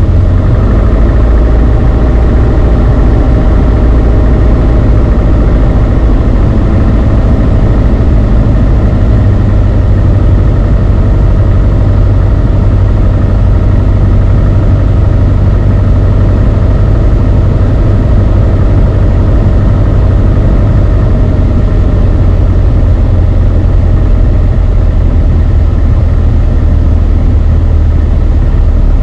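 Beechcraft Sundowner 180's four-cylinder Lycoming engine and propeller running steadily in flight, a loud, even drone heard inside the cockpit.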